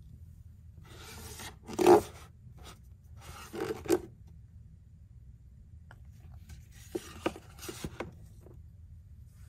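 A paperback book scraped out from a tightly packed row on a wooden bookshelf, paper rubbing against the neighbouring books: the loudest scrape comes a couple of seconds in, a shorter one just before four seconds. Near the end it is pushed back into the row with a few light knocks and rubs against the wooden shelf.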